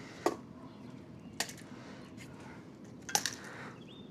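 A few light clicks and taps from the gear-oil pump's fitting being handled and screwed into the outboard lower unit's bottom drain hole: three short sharp clicks spread over a few seconds.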